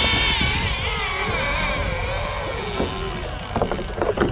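Fishing reel drag screaming as a hooked yellowfin tuna strips line, its whine wavering up and down in pitch. A few sharp knocks near the end.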